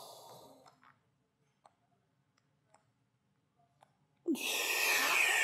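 A man's paced breathing: a breath fading out at the start, a held pause with a few faint clicks, then a long, loud exhale beginning about four seconds in.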